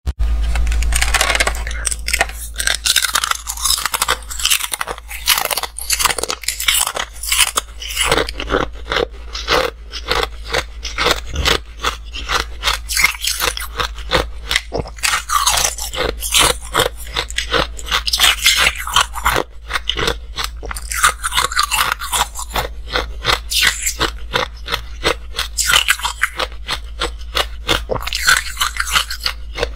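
Frozen ice sticks crackling and scraping against a plastic tray as they are handled, dense irregular crunches and clicks over a steady low hum.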